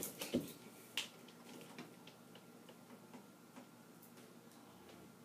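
Faint, scattered light knocks and clicks from a person moving about a small room, the loudest about a second in, then sparser over quiet room tone.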